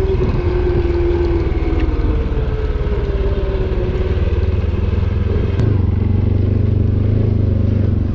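ATV engine running steadily, with a whine that slowly drops in pitch over the first few seconds. About five and a half seconds in there is a click, and the engine settles into a deeper, steadier hum.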